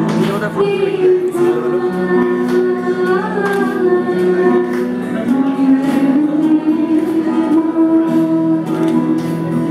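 A woman singing a Hindi film song with acoustic guitar and keyboard accompaniment.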